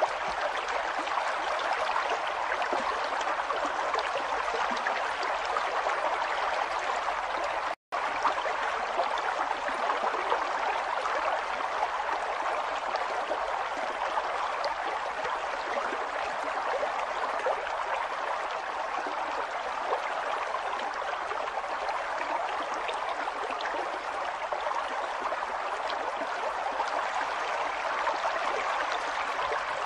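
River water flowing, a steady rushing, babbling stream. The sound cuts out completely for a split second about eight seconds in.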